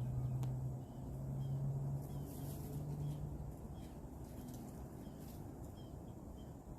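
Outdoor ambience: a steady low hum that fades out about halfway through, with faint short high chirps repeating about twice a second.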